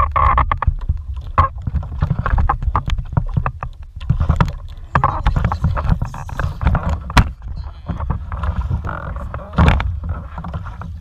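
Water sloshing against a small kayak's hull over a low rumble, with many sharp knocks and clicks from handling on the boat while a fish is brought aboard.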